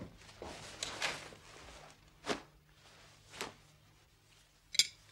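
Tableware being handled at a dinner table: a few separate soft scrapes and knocks of cutlery and china, with the sharpest clink near the end.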